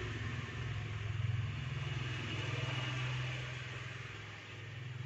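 A steady low motor hum, a little louder about a second in and easing off near the end.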